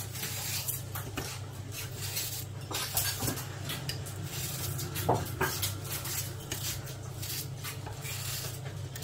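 Kitchen clatter: dishes and utensils clinking and knocking now and then as food is prepared, over a steady low hum.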